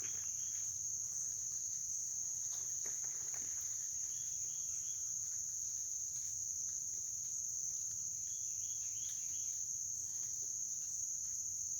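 Steady, high-pitched chorus of crickets trilling without a break, with a few faint short chirps now and then.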